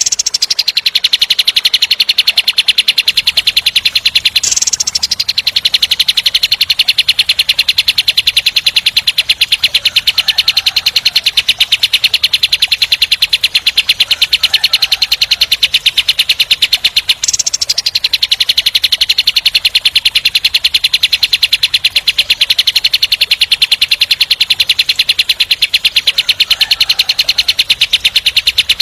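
Kapas tembak bird singing its rapid-fire 'tembak' song: a long, fast, tight roll of harsh repeated notes. It breaks briefly twice, about four and a half seconds in and again near the middle, with a higher burst at each break.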